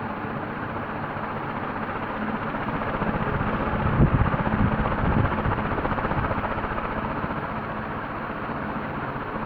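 A 1989 KDK T56ZK ceiling fan running, a steady rush of air with a low motor hum. About four seconds in, a couple of seconds of louder low buffeting.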